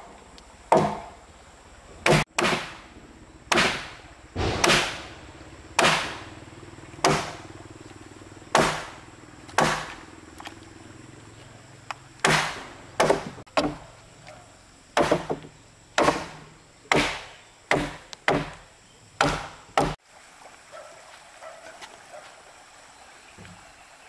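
Repeated chopping blows on timber, about one a second, with a short pause midway and a quicker run of strikes later, stopping a few seconds before the end.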